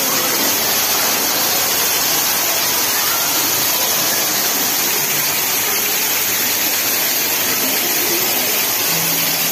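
Artificial waterfall: water pouring down a sculpted rock wall, a steady, even rush of falling water.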